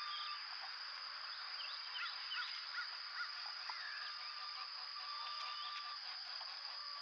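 Outdoor field ambience: a steady high-pitched whine over a dense hiss, with scattered short bird chirps and calls, busiest two to three seconds in. It cuts off suddenly at the end.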